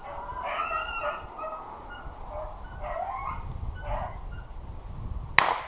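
Hunting dogs baying as they run a rabbit, a few separate calls, then a single sharp gunshot near the end, the loudest sound.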